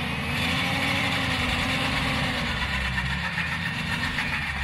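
Mitsubishi L200's 2.5 DI-D diesel engine running under light throttle, its revs swelling and easing in slow waves, while the truck is held on a recovery line on a steep slope.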